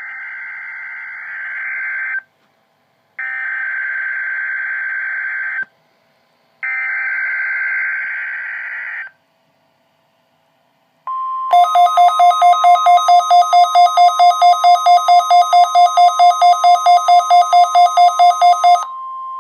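Emergency Alert System tones on NOAA Weather Radio: three bursts of SAME header data, each a harsh two-tone warble about two seconds long, separated by gaps of about a second. Then the steady weather radio warning alarm tone begins, and for about seven seconds a loud electronic beeping, about four beeps a second, sounds over it before stopping shortly before the tone ends.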